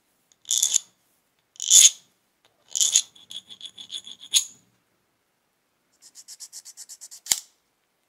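A hand file scraping across a small brass lighter part: three separate strokes, then a run of short quick strokes, and later a faster run of small rapid strokes ending in a sharp click.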